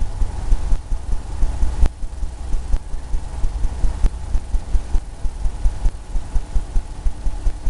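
Paintbrush working oil paint onto a canvas on an easel, making quick, irregular low thumps several times a second.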